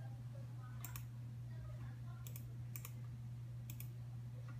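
A computer mouse clicking: about four short, sharp clicks, some of them doubled, spread over a few seconds, over a steady low hum.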